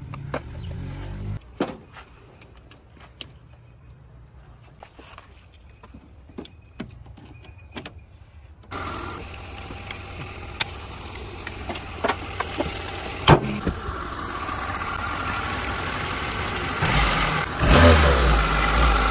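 Scattered faint clicks and knocks, then a car engine starting abruptly about eight seconds in and running, getting steadily louder, with a sharp knock partway through and a heavy low surge near the end like revving.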